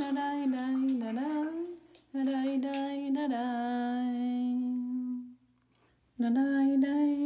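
A woman humming a slow wordless tune in long held notes with small slides in pitch, breaking off briefly about two seconds in and again for nearly a second about five and a half seconds in.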